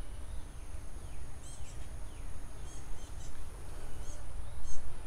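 Birds chirping outdoors: short high chirps, one or two at a time, every second or so, over a low rumble and a steady high whine.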